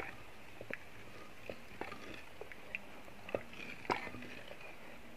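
Wooden spatula stirring thick sweet-potato kheer in a clay pot: faint, scattered clicks and soft scrapes at irregular intervals.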